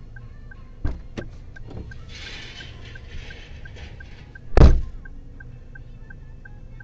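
Car door knocks and opens, then shuts with a loud thump about four and a half seconds in. A steady fine ticking, about three ticks a second, runs underneath.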